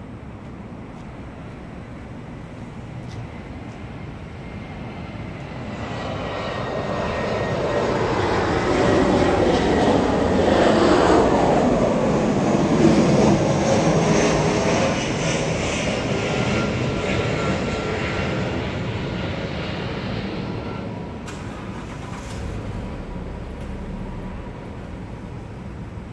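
An airplane flying over: a rushing engine noise that swells slowly for several seconds, is loudest about halfway through, then fades away over several more seconds.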